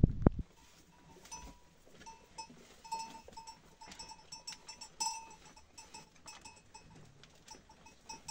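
A loud low rumble cuts off about half a second in. Then come the quiet sounds of a goat stable: light clicks and knocks of goats moving about, and a small bell clinking now and then.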